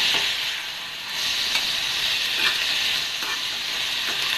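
Sweet corn kernels sizzling in a little hot oil in a metal pan while being stirred with a spoon. The spoon scrapes and knocks against the pan now and then over the steady sizzle, which dips briefly about a second in.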